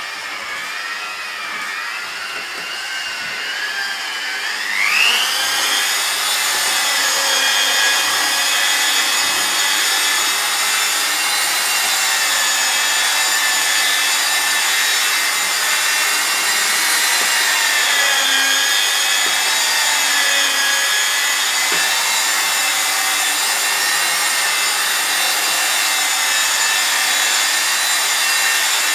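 Electric rotary car polisher whining as its foam pad buffs cutting compound into the paint. About five seconds in it speeds up from a low spreading speed to working speed, the whine jumping higher and louder, then runs steadily with slight wavering as the pad is worked across the panel.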